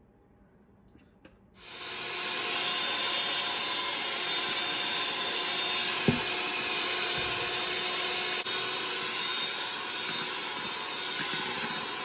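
Electric hand mixer switched on and running steadily, beating cake batter in a metal bowl. It starts suddenly about a second and a half in, with one sharp knock about six seconds in.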